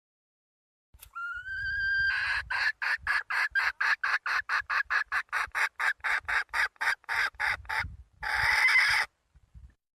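Desi hen calling: one rising note about a second in, then a fast run of clucks at about four a second, ending in a longer, harsher squawk near the end.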